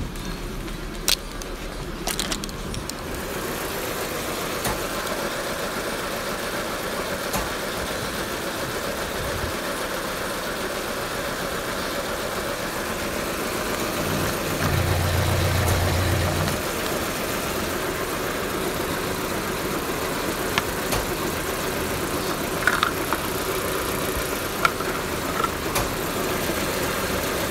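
Audi A4 B5's 1.8-litre 20-valve four-cylinder engine (ADR) idling unevenly with a misfire. A few sharp clicks and knocks come near the start and towards the end, and the low hum grows louder for about two seconds past the middle.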